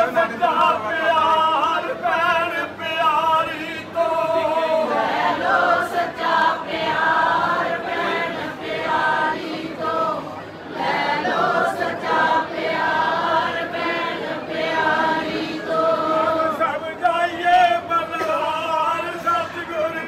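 A congregation of men and women singing a devotional hymn together, many voices in unison.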